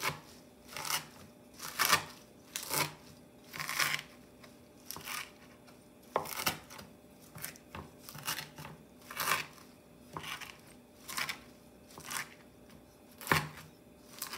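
Chef's knife chopping kale leaves on a wooden cutting board, a crisp chop about once a second.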